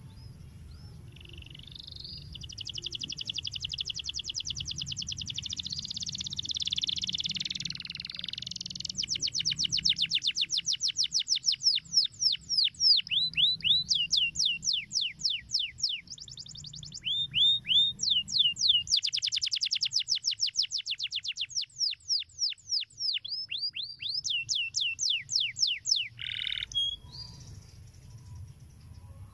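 Domestic canary singing a long song of fast trills, each made of rapid repeated notes that sweep down in pitch, with a couple of short pauses, the song ending about 26 seconds in.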